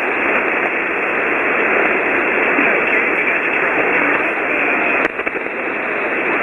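Ham radio receiver tuned to 40-meter single sideband, giving a steady rushing hiss of band noise. The other station's signal has faded down into the noise and is not readable.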